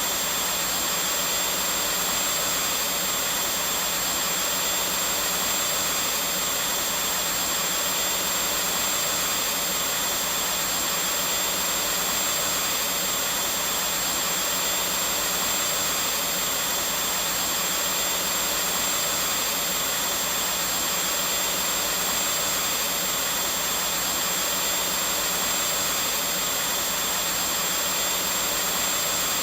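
Vacuum cleaner running steadily: an even, unbroken whooshing drone with a faint high whine.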